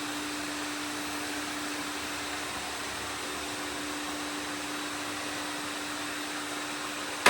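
Robot vacuum cleaners running together: a steady whirring drone with a constant hum. A sudden loud knock at the very end.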